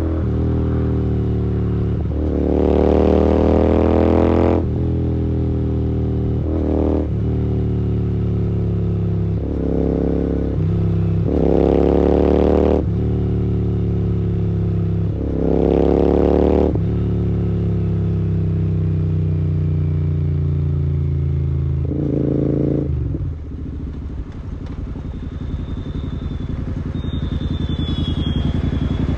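Royal Enfield Continental GT 650's 648 cc parallel-twin engine through a Gursewak aftermarket exhaust, ridden with repeated openings of the throttle. The revs rise and fall about six times, then ease off to a lower, steadier run near the end.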